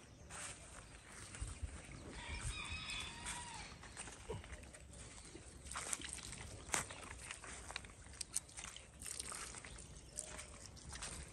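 A rooster crowing once, about two seconds in, one call lasting over a second, with scattered light clicks and knocks afterwards.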